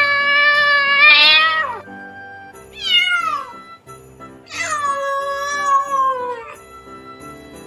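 Domestic cat meowing three times: a long drawn-out meow, a short one that falls in pitch, then another long one that slides down at the end. Light background music plays underneath.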